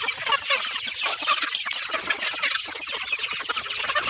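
A flock of chickens clucking and calling continuously, many short overlapping calls at once.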